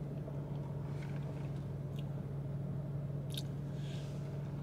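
A person sipping and swallowing an iced chai latte through a straw: soft, faint mouth sounds with a few small ticks. A steady low hum runs underneath in the car cabin.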